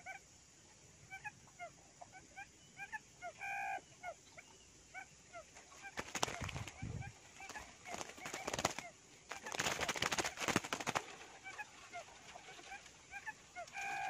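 A quail flapping its wings hard inside a wire trap: rapid bursts of wingbeats about six seconds in, again near eight seconds, and loudest from about nine and a half to eleven seconds. Repeated short bird chirps run throughout, and a louder call sounds twice, a few seconds in and at the end.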